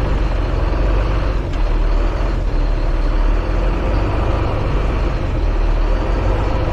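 Automatic farm truck being driven, heard from inside the cab: a steady low rumble of engine and road noise.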